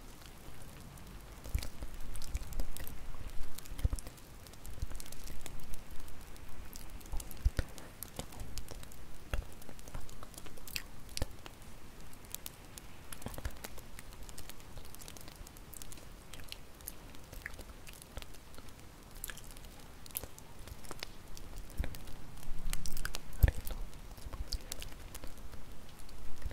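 Wood bonfire crackling, with irregular sharp snaps and pops over a low rumble of the flames, swelling louder now and then.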